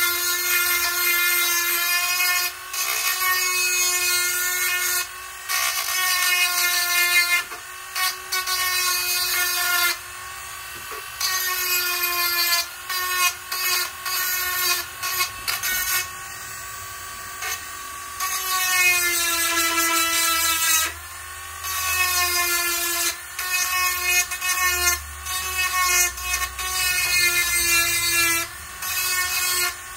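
Handheld rotary tool grinding down the nubs of a 16-tooth cog so it will seat on a Bendix coaster brake. The high motor whine starts and stops in repeated bursts of a second to several seconds, the pitch dipping at times as it bites.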